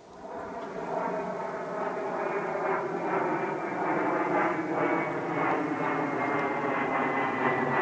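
An engine drone swells up over about a second, then holds steady and loud with its pitch slowly falling, as from a passing motor.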